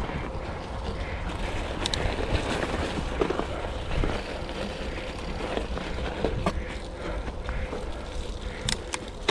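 Mountain bike rolling along, its tyres running over the ground with scattered clicks and rattles from the bike over a steady low rumble.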